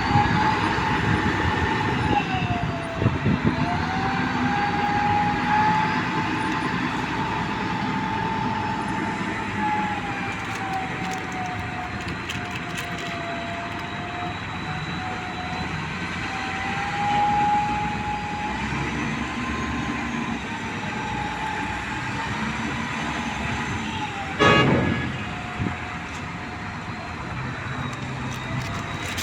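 Heavy earthmoving machinery running, with a high whine that drifts slowly up and down in pitch as the load changes over a steady engine drone. A single loud clank comes about 24 seconds in.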